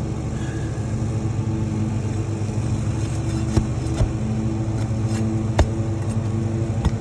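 A motor running steadily with a low, even hum, with a few sharp clicks or taps over it.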